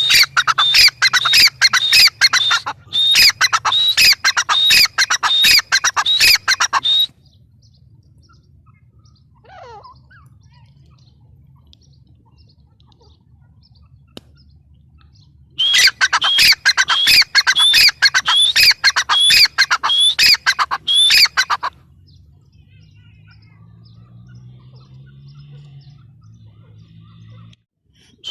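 Grey francolin calling in two loud bouts of rapid, harsh, repeated notes, each about six seconds long, separated by a pause of about eight seconds. A faint low hum runs underneath.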